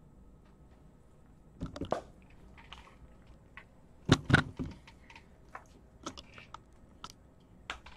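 Handling noise: scattered light clicks and knocks, with a short cluster about two seconds in and two louder knocks about four seconds in.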